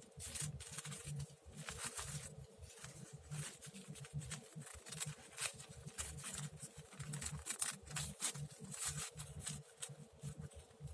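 Paper being handled at a craft table: scattered light rustles and small clicks, with a faint steady hum underneath.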